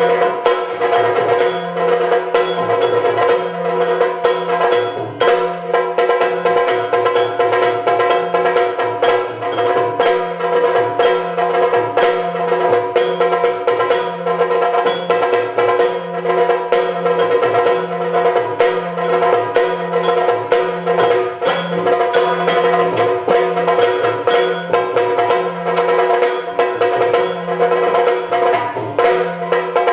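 Yakshagana instrumental accompaniment without singing: fast chende drumming, with low drum strokes switching back and forth between two pitches, over a steady sustained drone.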